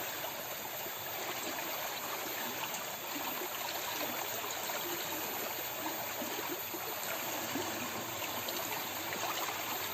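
River water flowing steadily, a continuous even hiss of running water.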